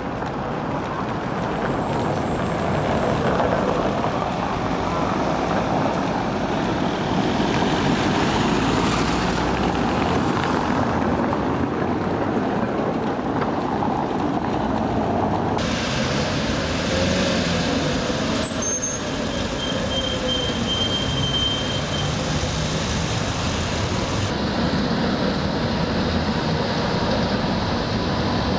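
Tatra trams running along street track amid city traffic. A whine rises and falls midway through, and the sound changes abruptly twice.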